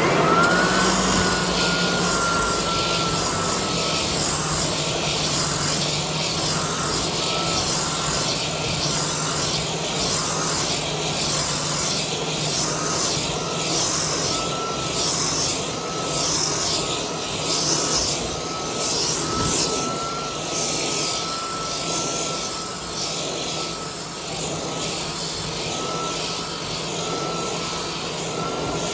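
Floor edger sanding a hardwood floor: its motor whines up at the start, then runs steadily under load over a continuous grinding hiss that swells and fades about once a second as the disc is worked back and forth.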